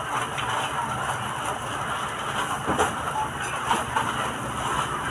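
Busy shop ambience: a steady din of background chatter and handling noise, with a short rustle or knock a little under three seconds in.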